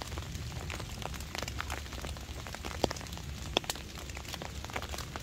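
Rain pattering on a canvas tarp overhead, with scattered sharp ticks and pops, two louder ones about three seconds in, half a second apart.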